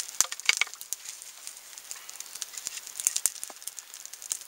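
Small twig-and-stick campfire crackling as the damp kindling catches, with irregular sharp pops and snaps, a few louder ones in the first second and again about three seconds in.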